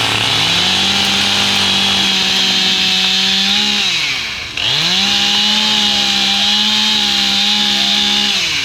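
Petrol chainsaw run at full throttle, holding a high steady pitch. Its revs drop briefly about four seconds in, then it revs up again and holds until it drops off near the end.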